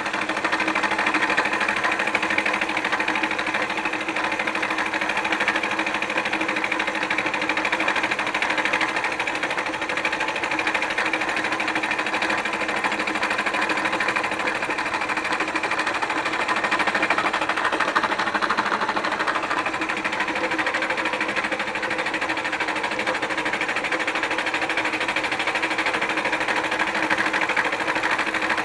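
Milling machine face-milling a cast iron exhaust manifold: the spindle runs at a steady hum while the cutter shaves the face with a continuous, even cutting noise.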